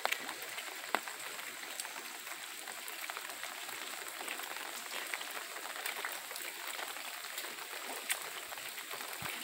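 Light rain falling on a wet paved street: a steady soft hiss with scattered sharp drips ticking and splashing.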